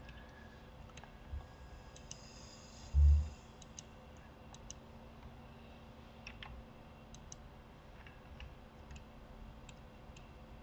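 Faint, scattered computer mouse clicks, irregularly spaced, with one short low thump about three seconds in.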